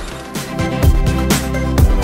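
Background music with a steady beat, about two drum hits a second, swelling in about half a second in.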